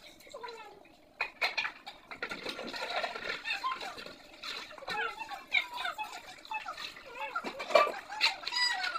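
Dishes being washed by hand in a sink: a metal pot knocking and water splashing in a plastic basin, the loudest knock near the end. Quick, high squeaky chirping calls run through most of it.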